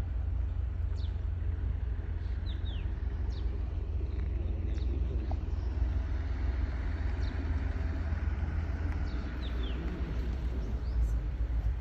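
A car approaching along a paved lane, its engine and tyre noise building over the second half, over a steady low rumble. Short, high, falling bird chirps come every second or so.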